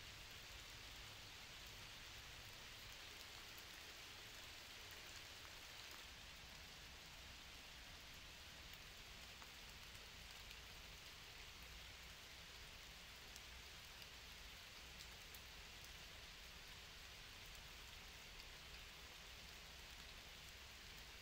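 Faint, steady light rain pattering on leaves and grass, with an occasional soft drip.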